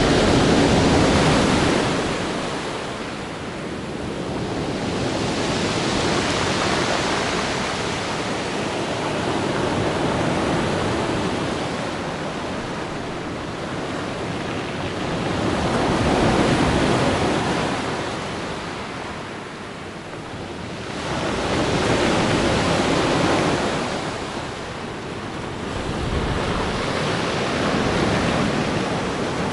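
Black Sea waves washing onto the shore, the surf noise swelling and falling back in slow surges about every five or six seconds.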